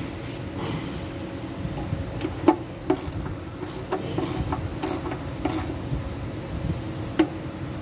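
Ratchet wrench working the bolts of a Land Cruiser GRJ200's automatic transmission oil pan, giving irregular metallic clicks and clinks. Two sharper clinks stand out, one about two and a half seconds in and one near the end.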